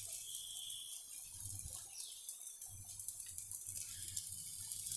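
Faint, steady sizzle of a pooda (sweet pancake) frying in a little ghee on a nonstick griddle, with tiny crackles over a low hum.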